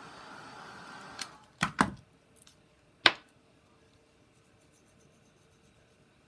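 Small electric fan running with a steady whir, switched off about a second in. Two thuds follow, then a single sharp click about three seconds in.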